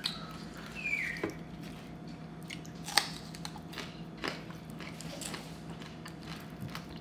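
Close-up chewing and biting while eating noodles and raw vegetables, with a few sharp crunchy clicks. A brief high falling whine comes about a second in.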